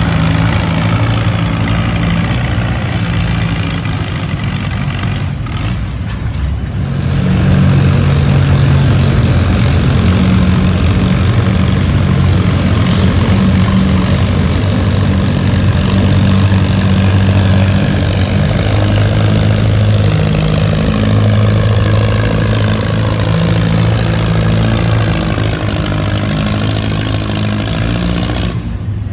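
Antique farm tractor engines pulling a weight-transfer sled under heavy load, the engine note holding steady. First an Allis-Chalmers, then, after a brief drop about six seconds in, a second tractor's engine pulling.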